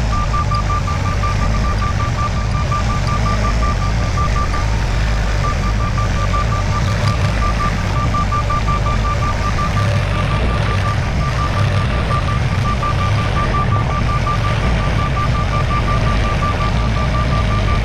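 A motor or engine running steadily with a low hum, under a rapid, even beeping in a single high tone that pauses briefly about five seconds in.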